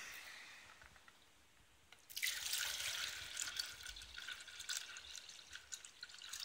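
Water poured from a jug into a plastic measuring jug. It starts about two seconds in and splashes steadily as the jug fills.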